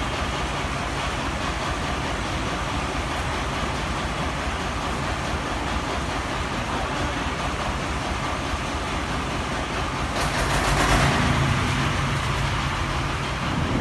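A self-loading concrete mixer's engine running steadily. About ten seconds in it grows louder, with a rattle and a heavier low hum.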